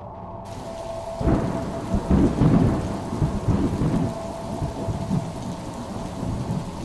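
Rain hissing steadily, with a rumble of thunder that breaks about a second in, rolls for a few seconds and slowly dies away. A faint steady hum runs underneath.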